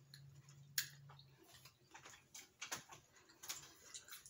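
Faint, scattered wet mouth clicks of people chewing gummy candies, with a brief low hum in the first second or so.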